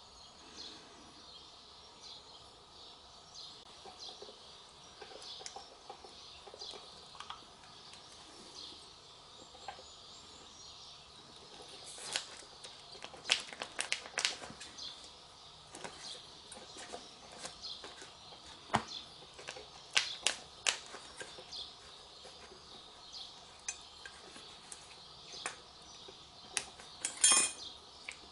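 Scattered metallic clicks and clinks from a rear brake caliper carrier and its slide pin being handled and refitted. The clinks come in clusters about halfway through and again near the end.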